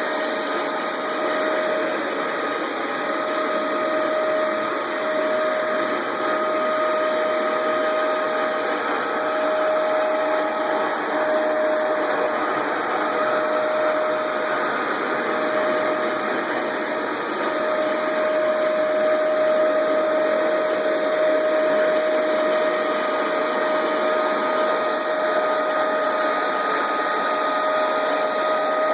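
Hoover Max Extract 77 carpet deep cleaner running steadily while making cleaning passes over carpet: a rushing suction noise with a constant motor whine.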